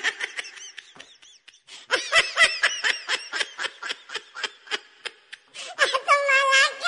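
High-pitched laughter. A short run of laughs, a brief pause, then a long quick run of laughs, about four or five a second, ending in one long, high, held laugh near the end.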